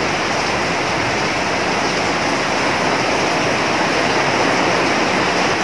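A steady rushing noise, even and unbroken, with no distinct knocks or clicks.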